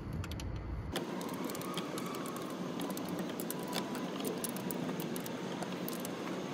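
Hands working on the diesel fuel hose fittings of a Td5 engine: scattered small clicks and rattles of the fittings over a faint steady hiss.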